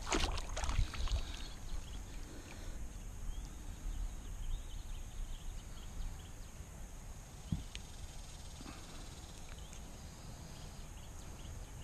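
Faint steady outdoor background noise with a few soft clicks and knocks, one small knock about seven and a half seconds in.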